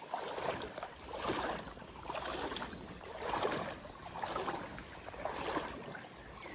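Legs wading through shallow river water: a swishing surge of water about once a second.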